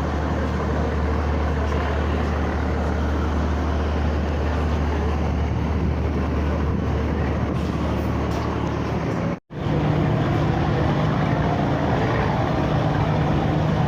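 Car ferry under way: a steady low engine drone with a rush of wind and water noise. About nine and a half seconds in it cuts off abruptly and resumes with a somewhat higher-pitched hum.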